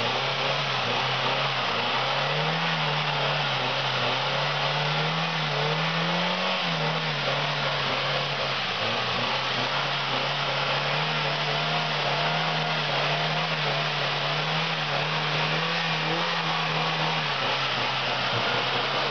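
Suzuki Vitara's engine running steadily under load on an off-road climb, its note rising and falling a little for a few seconds early on, over a steady hiss.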